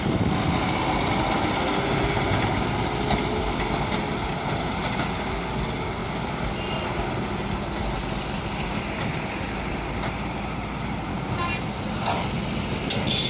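JCB backhoe loader's diesel engine running steadily while it works, with a short high-pitched tone near the end.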